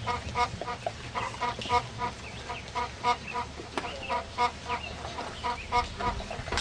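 A bird calling with a rapid run of short clucks, about three or four a second.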